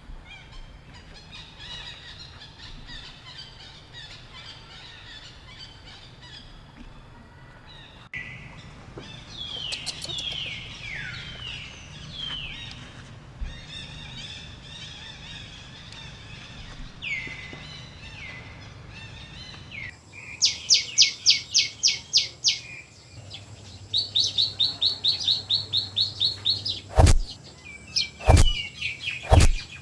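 Birds calling: scattered chirps, then several whistles that slide downward in pitch, followed by rapid, evenly spaced runs of chirps. Three sharp clicks come near the end.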